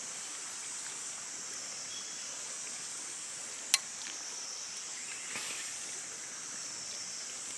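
Steady high-pitched shrilling of a jungle insect chorus, with one sharp click about three and a half seconds in.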